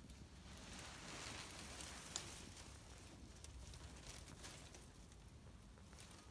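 Near silence, with a faint crackling hiss and scattered small ticks, one slightly sharper a little after two seconds.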